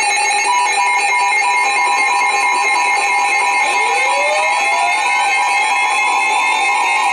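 Emergency Alert System two-tone attention signal, held steady and loud, sounding ahead of a tornado warning. A fainter rising whistle joins it about halfway through.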